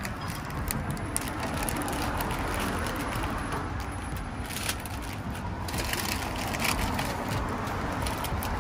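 Clear plastic cookie wrapping crinkling and crackling irregularly as it is handled and opened.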